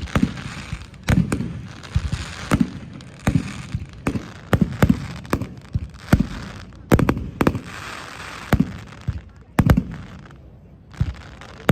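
Aerial fireworks bursting in rapid succession: deep booms and sharp cracks every half second or so, with crackling between the bursts.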